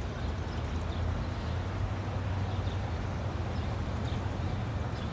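Steady city background noise with a low traffic-like rumble and a few faint light ticks.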